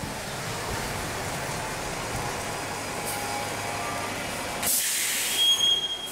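Van Hool transit bus pulling up to the stop with its engine running, then a loud burst of pneumatic air hiss as it halts, with a short high beep near the end.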